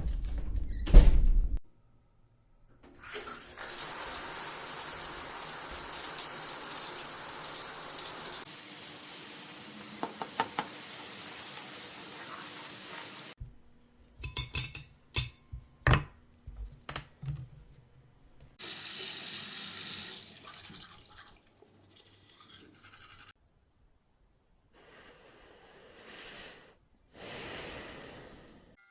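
A series of separate household sound effects: a thump about a second in, then water running from a tap for about ten seconds, a run of sharp knocks and clicks, and short bursts of rushing noise near the end.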